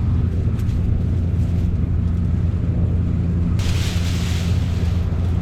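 Combine harvester running under load while cutting soybeans, a steady low drone, with a sudden noisy rush starting about three and a half seconds in and fading over a second.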